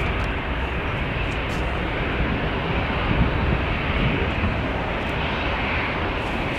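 Jet airliner's engines, a steady rushing noise without clear tones.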